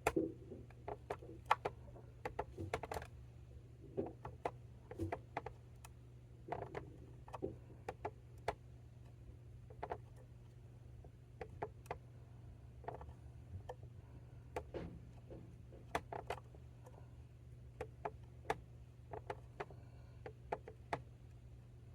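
Irregular light clicks and taps of a screwdriver working a small screw into a plastic toy's battery cover, with the plastic body knocking as it is handled.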